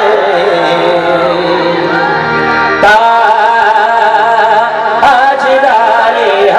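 Qawwali group singing with harmonium accompaniment: male voices sing long wavering lines over sustained harmonium chords. A sharp percussive hit comes about three seconds in and another about five seconds in.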